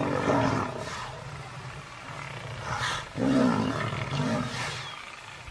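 Lion calls in two loud bouts, a short one at the start and a longer one about three seconds in, over a steady low hum.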